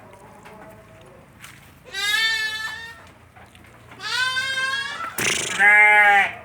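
Goats bleating: three loud, wavering bleats about two seconds apart, the last the loudest and longest.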